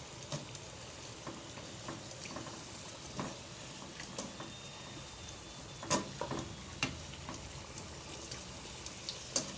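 Sweet potato chunks frying in hot oil with sugar, a steady soft sizzle, the sugar melting and starting to cling to the pieces. Scattered clicks and knocks of stirring against the pan come through, sharpest about six seconds in and just before the end.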